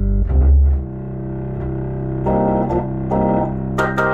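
Hammond H112 valve tonewheel organ played through its Leslie speaker: deep bass notes in the first second, then a long held chord, with higher notes added over it about two seconds in and again near the end.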